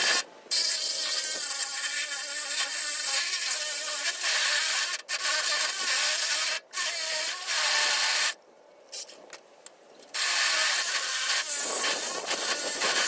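Power saw with a new blade cutting through metal, running in long spells. It stops briefly near the start and for about two seconds past the middle, with a few clicks in the pause.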